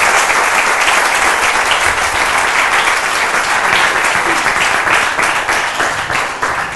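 Audience applauding: dense, sustained clapping that starts to die away near the end.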